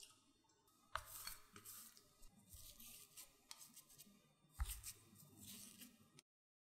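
A flat utensil scraping through and pressing mashed potato in a glass bowl, with two sharp knocks against the bowl, one about a second in and one past the middle. It cuts off abruptly near the end.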